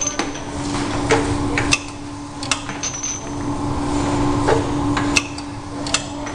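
Semi-automatic round-bottle labelling machine at work: a steady hum under irregular sharp clicks and knocks, about one a second, as small bottles are set into the rollers and the hinged roller arm is pressed down to wrap the label.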